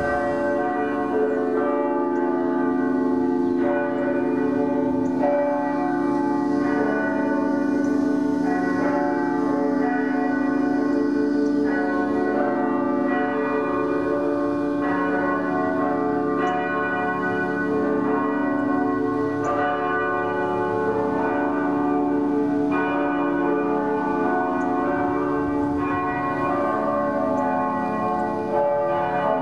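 Church bells ringing, with a fresh stroke about every second and a half over a sustained hum of overlapping tones.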